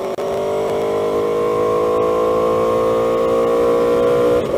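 2015 Aprilia Tuono V4's V4 engine through a GPR Thunderslash exhaust, loud, pulling under acceleration. The engine note climbs steadily after a brief cut just after the start, then drops near the end as the bike shifts up.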